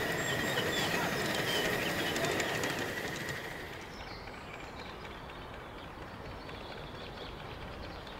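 A 5-inch gauge live-steam model locomotive with its driver aboard running past close by, with quick clicking from the wheels on the track and a steady high tone. A little over three seconds in, the sound drops suddenly to the quieter running of the train heard farther off.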